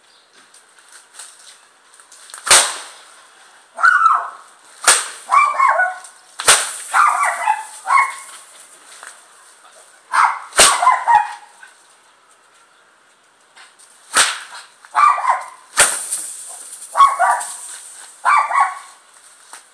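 A bullwhip cracking sharply about half a dozen times at glitter-filled balloons, some of the cracks popping a balloon. A dog barks in short bouts between the cracks.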